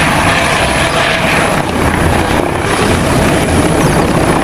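Light helicopter with a shrouded tail rotor hovering low: steady rotor and engine noise with a pulsing low chop and a thin, constant high whine.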